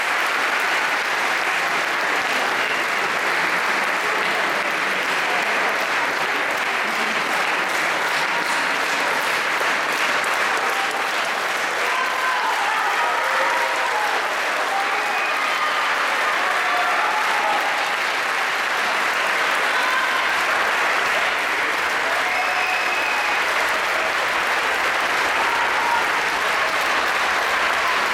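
Audience applauding steadily, with a few voices faintly heard over the clapping.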